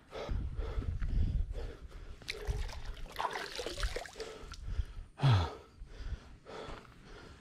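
A man panting hard, out of breath from a steep uphill climb, with quick breaths about twice a second and one loud falling vocal exhale about five seconds in.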